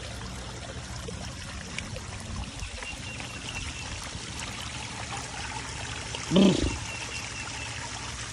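Small waterfall trickling and splashing over rocks into a stream pool, a steady flow of water. One brief, louder low sound stands out about six and a half seconds in.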